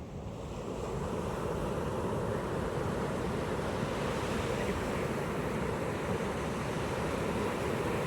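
Pacific ocean surf: a wave's rush builds up over about the first second, then the wash of breaking surf goes on steadily.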